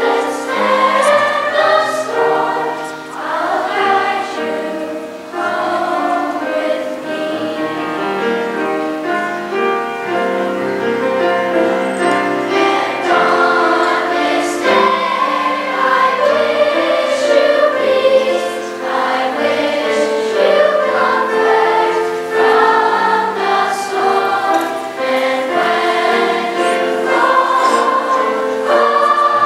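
Children's choir singing in parts with grand piano accompaniment.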